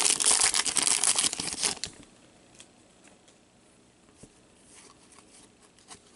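A hockey card pack's wrapper torn open and crinkled, loud crackling for about the first two seconds. After that only faint ticks of the cards being flipped through by hand.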